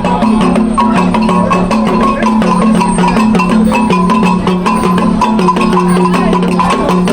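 Music with quick, even percussion strokes over a repeating low bass pattern.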